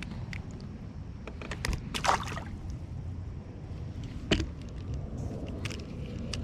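Water splashing and sharp knocks around a fishing kayak, over a steady low rumble: a cluster of splashes and clicks about two seconds in, and one sharp knock about four seconds in.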